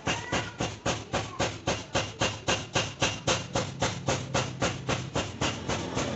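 Background music with a steady chugging beat of about four strokes a second, with low sustained tones coming in during the second half.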